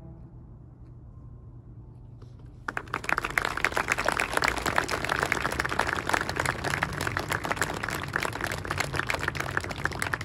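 A short hush after the orchestra's last chord dies away. About three seconds in, an audience starts applauding and keeps clapping steadily.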